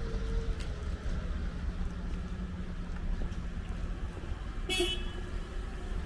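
Steady low rumble of road traffic, with one brief car-horn toot about five seconds in.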